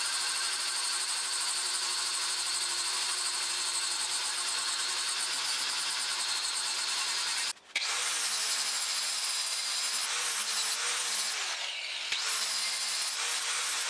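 Electric grinder working steel: a steady motor whine over a hiss of grinding. It breaks off for a split second about halfway through and goes on again, its pitch wavering a little near the end as the load changes.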